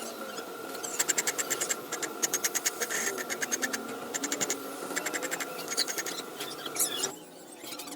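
Workshop machine running with a faint steady whine, under rapid runs of sharp ticking and scraping strokes. The whine cuts off suddenly about seven seconds in.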